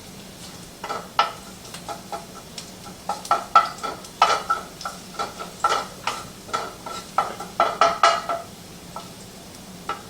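Metal slotted spoon stirring in a pan, with irregular ringing clinks and scrapes against the metal, about one or two a second, stopping shortly before the end. Hot olive oil sizzles faintly underneath as garlic toasts in it.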